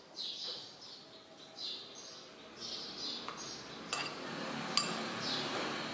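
A small bird chirping over and over, short falling chirps about once a second. Two sharp clinks of a metal spoon against a ceramic bowl come a little past the middle.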